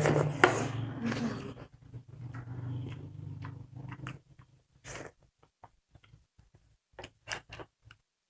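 Eating sounds close to the microphone: chewing and short wet mouth clicks and smacks, scattered from about five seconds in. Before them a steady low hum and a brief voice-like sound, which stop about four seconds in.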